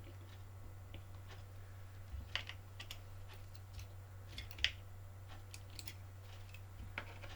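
Scattered small clicks and taps of hands working wires and plastic parts on an RC car chassis, the sharpest a couple of seconds in and again about four and a half seconds in, over a steady low hum.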